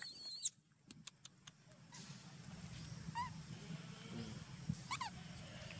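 Young macaque screaming: a very loud, shrill, wavering cry that cuts off suddenly about half a second in.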